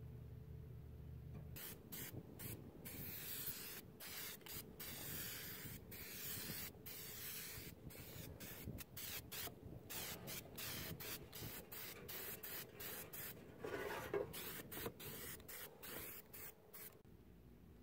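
Aerosol can of copper- and zinc-rich weld-through primer spraying in many short hissing bursts onto a steel wheel-well patch panel. A brief, louder noise stands out about fourteen seconds in.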